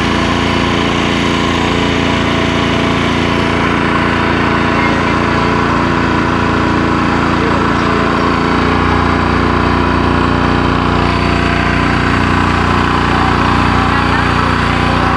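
Passenger motorboat's engine running steadily while the boat is underway, its low hum growing a little stronger just over halfway through.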